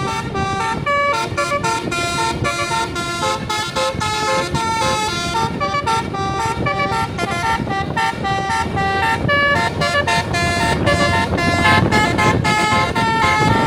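Basuri musical air horn on a tour bus playing a fast tune, one horn note after another in quick succession, over a steady low rumble.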